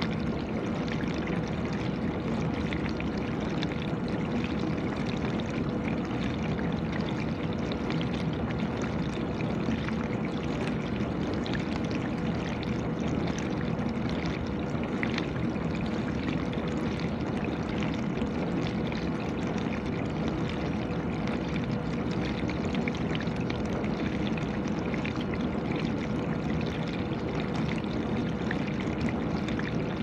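GE dishwasher running mid-cycle, water spraying and splashing steadily inside the tub, with a steady hum underneath.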